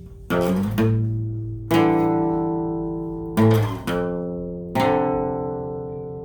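Guitar playing a slow instrumental: chords strummed about once a second or so, each left to ring and fade before the next.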